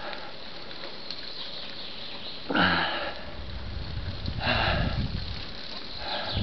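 A person breathing hard, with a sharp sniff or exhale about every two seconds, and wind rumbling on the microphone between them.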